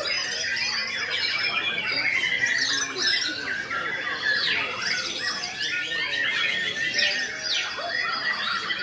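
Several white-rumped shamas (murai batu) singing at once: a dense, unbroken stream of overlapping whistles, trills, gliding notes and harsh squawks.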